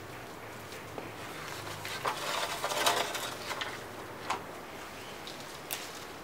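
Long stiff Pandan Bali leaves rustling as hands grab and gather them into a bundle, with scattered crisp ticks. It is loudest about two to three and a half seconds in.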